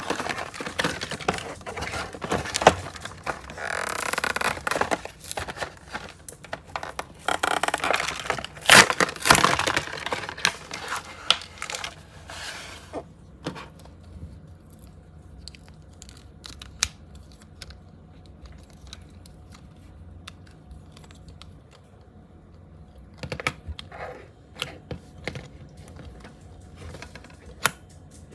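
Toy packaging being torn open and crinkled, with loud rustling surges, then from about halfway through only scattered clicks and taps of handling.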